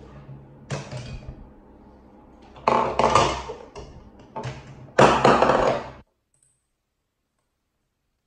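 Plastic balls dropped into a LeapFrog Peek-A-Shoe octopus toy, knocking and rattling through its hollow plastic body into the cup on its arm: a run of sharp plastic knocks over about six seconds, the loudest about five seconds in.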